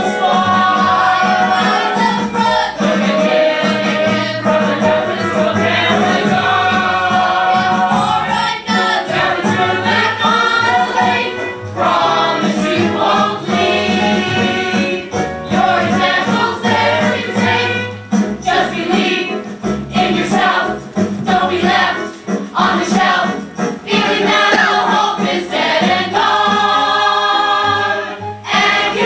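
A stage-musical cast singing together in chorus over instrumental accompaniment, with a steady bass line underneath.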